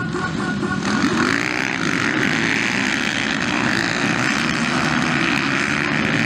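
A pack of motocross bikes racing together, many engines revving at once in a loud, wavering buzz that swells about a second in.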